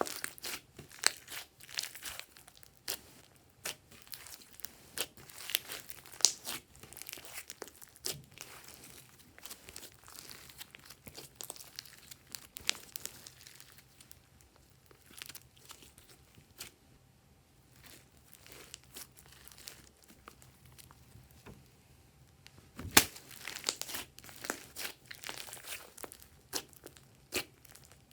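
Glossy slime being squeezed, stretched and pressed by hand, giving irregular sticky clicks, crackles and small pops. There is a busy run of clicks at first, a quieter stretch in the middle, and a loud pop about 23 seconds in that starts another busy run.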